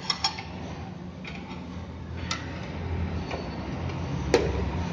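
Metal tyre lever and wheel rim clicking and knocking as a motorcycle tyre is levered onto the rim on a tyre changer: two quick clicks at the start, one about halfway, and a sharper, louder one near the end. A low hum underneath grows louder after a couple of seconds.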